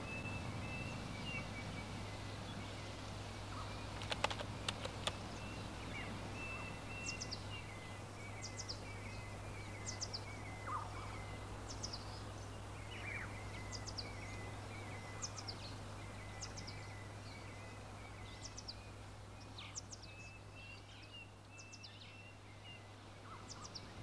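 Wild birds calling: short, thin, high notes sliding downward, repeated about once a second, over a quieter continuous twittering. A steady low hum runs underneath, and there are a few soft clicks about four seconds in.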